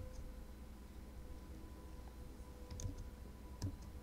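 A few faint computer keyboard keystrokes, one at the start and a couple near the end, over a faint steady hum.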